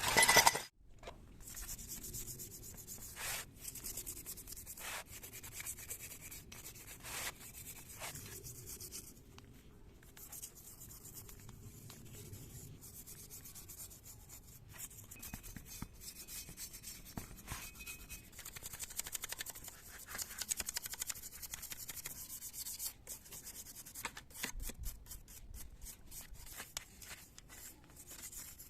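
Scratchy hand rubbing or scrubbing on a carburetor part, going on steadily with occasional harder strokes, after a sharp clink right at the start.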